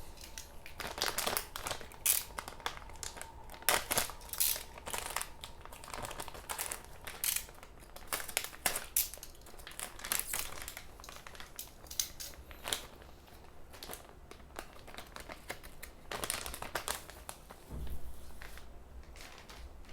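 Plastic packaging around a keyboard PCB being opened and unwrapped by hand, crinkling and crackling in irregular bursts.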